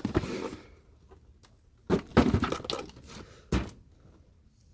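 Stock items being handled and moved: a few knocks, scrapes and clatters, with a sharp knock about three and a half seconds in.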